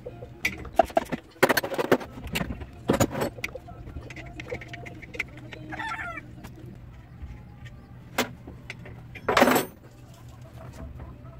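Scattered clicks and knocks of hands and tools working on a truck's brake master cylinder and hydrovac lines, with one louder clatter near the end. A short animal call, the kind PANN files as a chicken clucking, comes about six seconds in, over a low steady hum.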